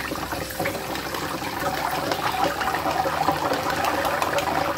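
Chopped onions sizzling and crackling in hot oil in a pan, a little louder from about two seconds in.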